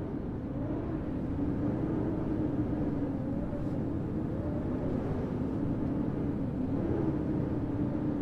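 Steady low rumble of wind and street traffic, with a low hum that wavers slowly in pitch.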